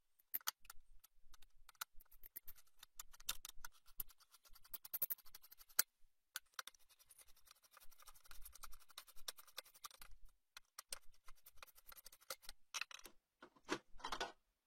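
Screwdriver unscrewing the four screws of a desktop PC's CPU heatsink: faint, rapid clicking and scratching of metal on metal, with a few louder bunches of clicks near the end.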